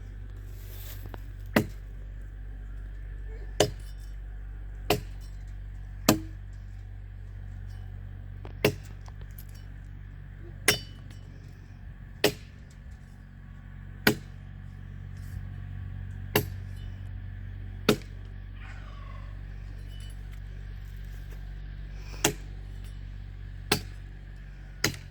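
Repeated sharp metallic strikes, about one every one and a half to two seconds, over a steady low hum.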